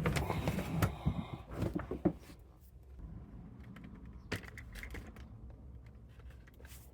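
Scissors cutting a cargo mat: a quick run of clicking snips and rustling, then a few scattered clicks after about two seconds.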